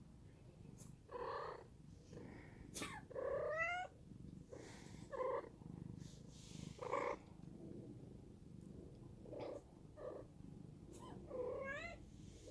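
A house cat meowing: two drawn-out, rising cries, one about three seconds in and one near the end, with several shorter calls between them.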